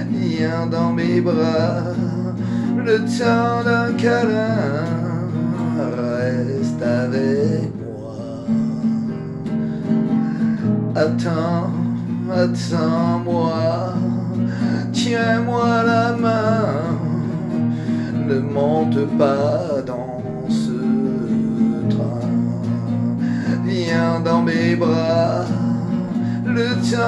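Acoustic guitar with a capo, strummed steadily through a chord progression, with a man's voice singing along in stretches.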